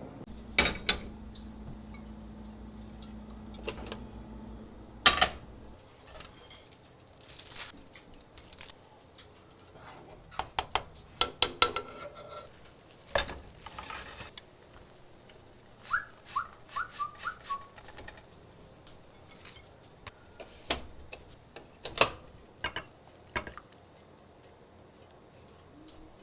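Dishes and kitchen utensils being handled: scattered sharp knocks and clatters, with a few short high squeaks or chirps around the middle. A low steady hum runs for the first five seconds and stops with a loud knock.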